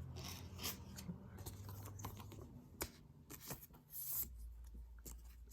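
Soft clicks and light rustling of trading cards being handled, scattered and quiet.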